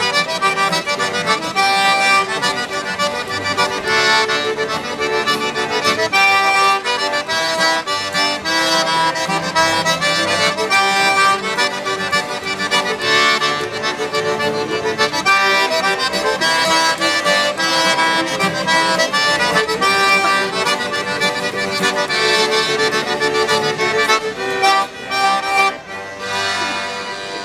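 Traditional folk tune played live by a trio: button accordion leading, with fiddle and strummed acoustic guitar. It is steady and rhythmic and eases off slightly near the end.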